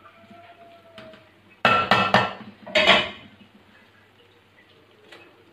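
A spoon scraping and clattering against the inside of an aluminium pot as cooked pulao rice is stirred, in a few loud bursts from about one and a half to three seconds in, with lighter knocks before and after.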